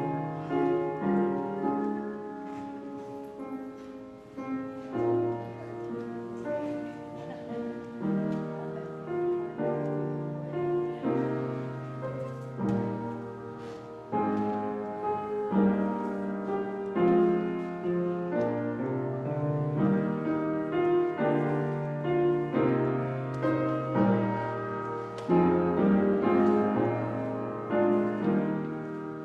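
Solo piano playing a slow classical-style piece, a melody over chords with bass notes held for a second or two.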